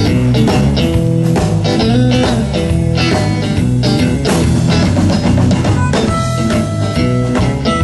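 Blues band playing an instrumental intro: guitar over bass and drum kit in a steady groove.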